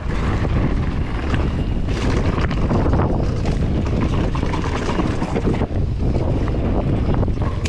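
Wind buffeting an action camera's microphone while a Vitus Sommet mountain bike rolls over dirt trail, with steady tyre rumble and short knocks and rattles from the bike over bumps.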